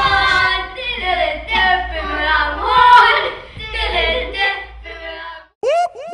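Several voices singing over a low accompaniment, stopping about five and a half seconds in. Near the end come three or four short calls that rise and fall in pitch.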